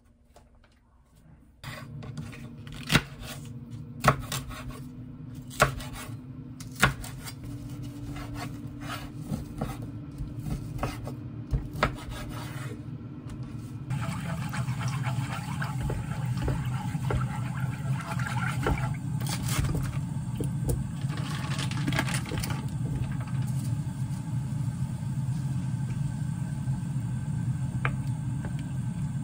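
Wooden chopsticks and a wooden spoon stirring and scraping in a nonstick frying pan of tteokbokki sauce, over a steady low hum that grows fuller about halfway through. There are a few sharp taps in the first several seconds.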